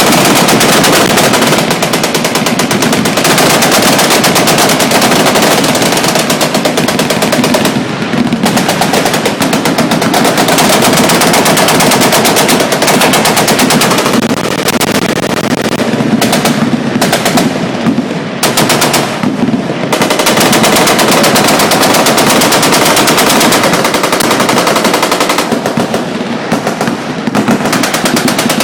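Machine guns firing full-auto in long, overlapping bursts that make an almost unbroken rattle of shots, broken by a few brief lulls.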